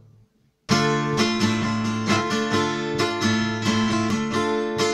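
Acoustic guitar playing the introduction of a song. It comes in with a sudden chord about a second in, then keeps a steady rhythm of strummed chord strokes.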